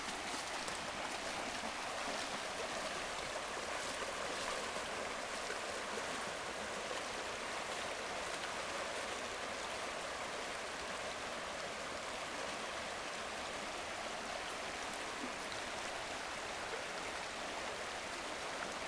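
Shallow river rushing over rocks: a steady, even rush of running water.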